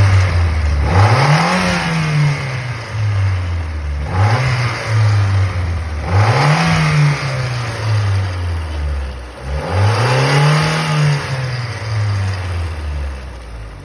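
Hot Chrysler 2.2 L turbo four-cylinder engine blipped from idle four times, each rev rising and falling back to idle. A knocking noise runs under it that does not change with throttle, which the owner takes for piston slap or a wrist-pin knock rather than a rod knock.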